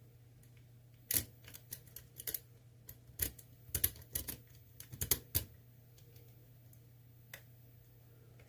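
Lock pick working the pin stacks of an ASSA Twin Combi lock cylinder: a run of about a dozen sharp metallic clicks and taps between about one and five and a half seconds in, as reset pins are chased back up.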